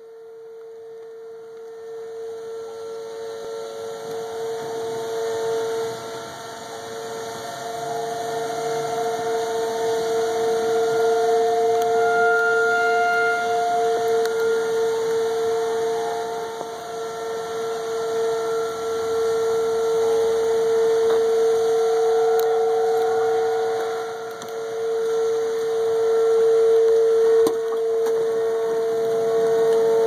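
Outdoor tornado warning siren sounding a steady wail. It grows louder over the first ten seconds, then slowly swells and fades. At the very end its pitch begins to fall as it winds down.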